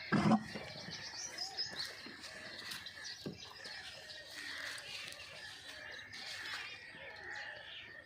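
A dromedary camel coughs once at the start, a short harsh burst, a cough of pneumonia. Small birds chirp steadily in the background.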